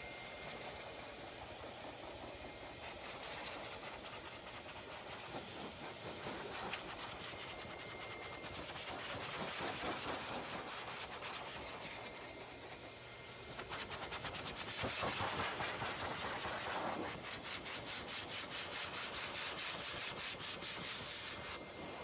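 Strong rushing air with a steady hiss, swelling louder twice, about a third of the way in and again through the latter half.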